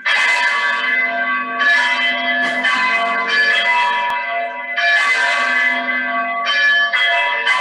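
Church bells pealing, several bells struck one after another about every second, each ringing on over the next.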